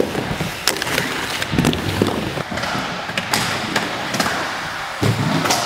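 Inline skate wheels rolling on a wooden skate bowl, with several sharp clacks as the skates strike the ramp and coping during a grind attempt.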